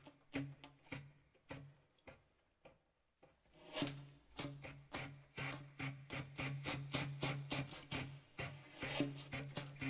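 Contemporary instrumental music: a regular run of short percussive strokes, about three a second, over a low sustained tone. It thins almost to silence about two seconds in and picks up again near the four-second mark.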